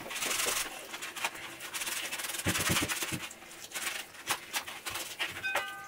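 Sponge scrubbing a ceramic sink basin by hand in rubber gloves, with uneven rubbing and scraping strokes and small knocks, while a thin stream of tap water runs. A short high squeak comes near the end.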